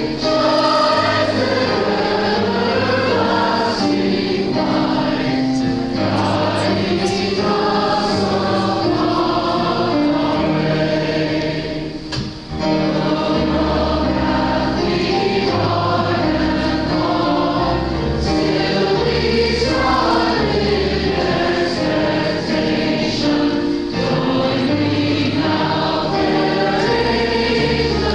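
A congregation singing a processional hymn with instrumental accompaniment, with a brief pause between lines about twelve seconds in.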